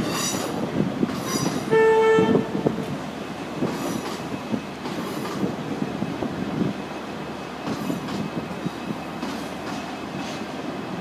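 An approaching CAF Class 4000 diesel railcar sounds one short, steady horn blast about two seconds in. Around it runs the train's low rumble and rail noise, with scattered clicks.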